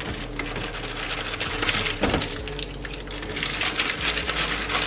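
Plastic food containers and snack packages rattling and clicking as they are rummaged through on a shelf, a dense run of small clicks and crinkles.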